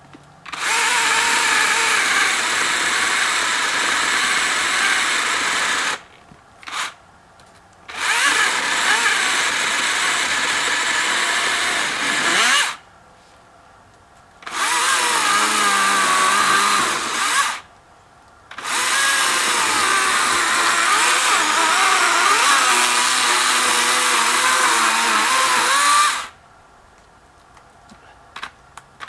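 Husqvarna 120i battery-powered chainsaw cutting into a small tree, running in four long bursts of several seconds each, with a brief blip after the first and short quiet pauses between them where the saw stops completely.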